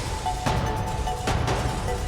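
Background music with a steady beat, a little more than one beat a second.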